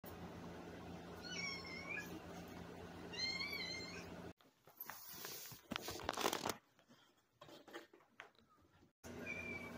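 Tabby cat begging for food with two short, high meows about two seconds apart. About halfway through, a brief burst of noise follows.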